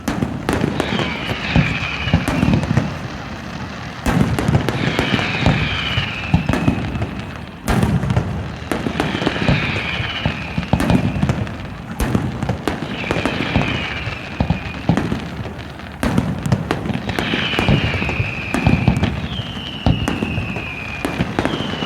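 Fireworks going off in repeated bursts about every four seconds, each starting suddenly with a bang and running on into crackling, with a short falling whistle over each burst.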